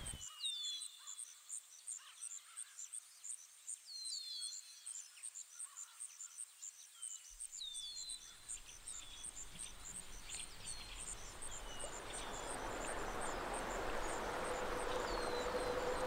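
Dawn woodland ambience: birds calling in short falling chirps now and then, over a fast, even series of very high pips, about four a second. Near the end a rising hiss and a held note come in.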